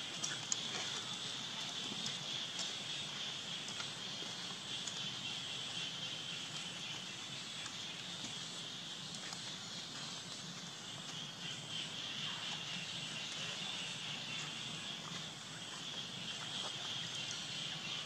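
Steady outdoor ambience: a constant high-pitched insect drone with a few faint clicks.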